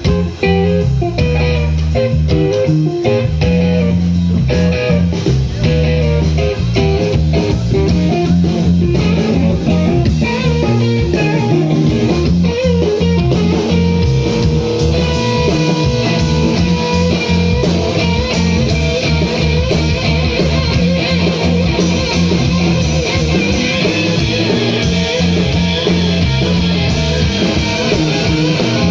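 Rock band playing live, an instrumental passage: electric guitar lines over bass guitar and steady drums.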